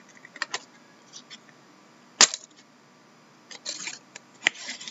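Trading cards and foil card packs being handled on a table: a sharp tap about two seconds in, the loudest sound, another near the end, and a brief rustle of pack wrappers in between.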